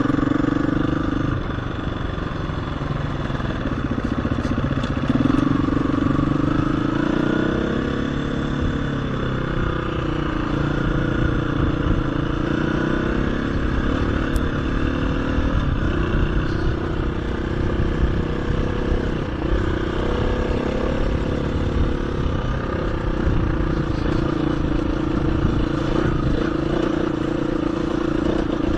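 KTM 350 EXC-F single-cylinder four-stroke dirt bike engine running under way, its pitch rising and falling several times as the throttle is opened and closed.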